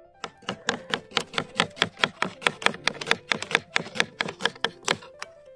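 Kitchen knife chopping onion on a plastic cutting board: fast, even knocks, about six a second, that stop about five seconds in. Faint background music with held notes plays underneath.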